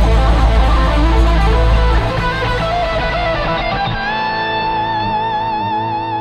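Rock band music led by electric guitar: a run of guitar notes over heavy bass for the first couple of seconds, then from about four seconds in one long held guitar note with an even vibrato.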